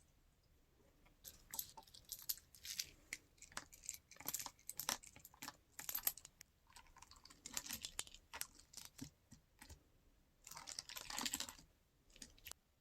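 Slime being squeezed and pressed by hand, giving irregular clusters of crackling clicks and pops, with a denser crackle near the end.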